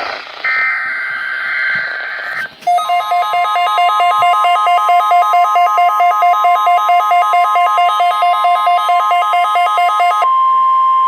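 NOAA Weather Radio weekly-test alert. It opens with a two-second burst of warbling digital data tones, the SAME header. Then a steady high warning-alarm tone begins, with rapid beeping laid over it that alternates between a lower and a higher pitch, about three times a second. The beeping stops about ten seconds in while the steady tone continues.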